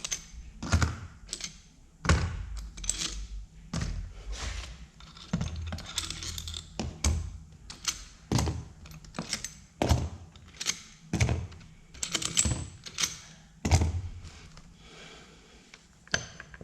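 Irregular clicks, clinks and knocks of metal engine parts and hand tools being handled on a workbench while an engine is dismantled, a few sharp strikes a second, some with a dull thud.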